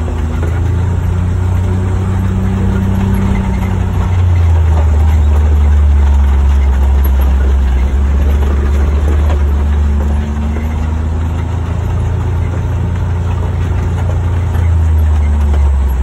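Engine of a side-by-side utility vehicle running steadily as it drives, a low drone that grows a little louder about four seconds in.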